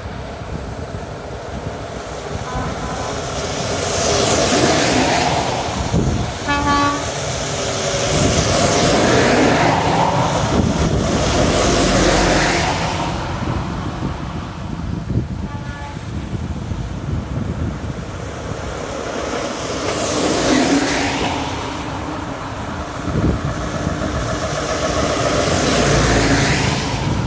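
Convoy of heavy lorries driving past one after another, about five passes, each swelling and fading as it goes by. A truck horn gives a short toot about seven seconds in.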